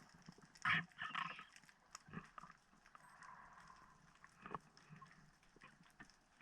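Underwater ambience: a faint hiss with scattered sharp clicks and knocks, the loudest about a second in.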